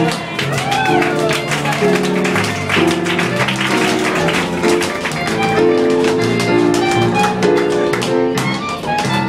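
Live band playing an instrumental swing break, with tap shoes clicking rapid steps on the floor over the music.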